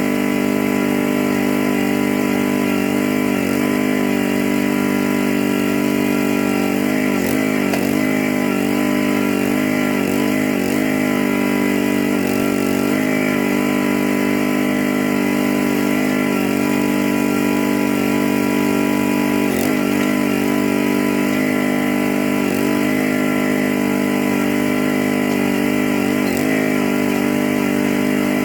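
Gas engine of a Harbor Freight towable backhoe running steadily while it digs, its pitch wavering and dipping briefly several times as the hydraulics take load.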